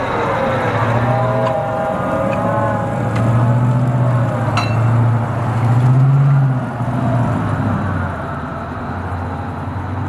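M2A3 Bradley Fighting Vehicle on the move, its Cummins V8 diesel running under a wavering whine, with a few sharp clanks from the tracks. It grows quieter near the end as the vehicle pulls away.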